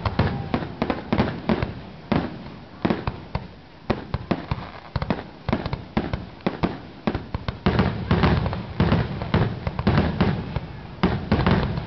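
Aerial fireworks finale barrage: rapid, overlapping shell bursts. The bursts thin out a few seconds in, then pack together again toward the end.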